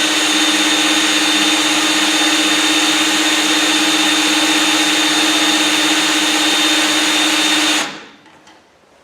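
Power drill running at a steady speed, driving a StripMeister wire stripper as No. 12 stranded THHN copper wire is pulled through and stripped. It runs at one even pitch, then stops about eight seconds in.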